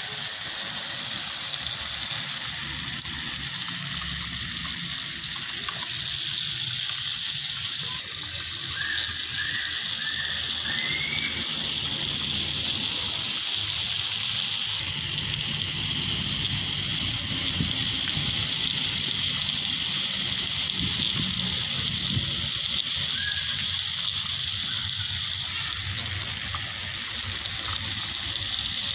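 Small DC motor of a homemade model hand tractor running steadily, a continuous high whir with hiss as it drives the toy along.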